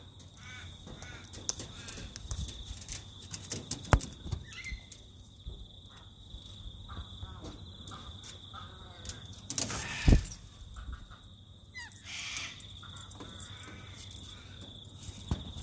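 Wild cockatoos, galahs among them, calling in short repeated screeches and chatter, with two sharp thumps about four and ten seconds in.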